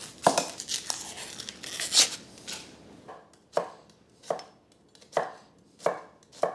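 Knife roughly chopping a large onion: a quick run of cuts for the first three seconds or so, then steady single chops a little under a second apart.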